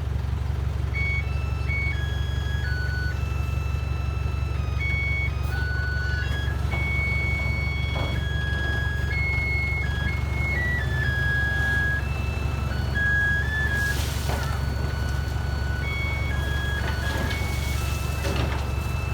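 A simple electronic jingle of plain beeping notes stepping up and down in a tune, over the steady low rumble of a heavy diesel engine running.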